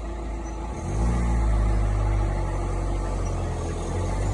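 Vehicle engine running with a steady low hum, getting louder about a second in as it pulls away.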